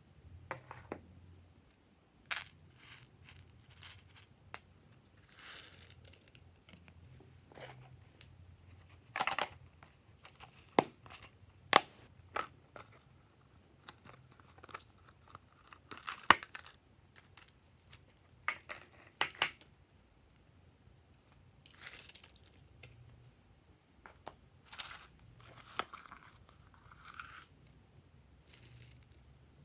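Thin plastic slime containers crinkling and clicking as hands flex and squeeze them, with sprinkles and confetti dropping onto slime in a glass dish. Irregular sharp clicks and short rustles, a few seconds apart.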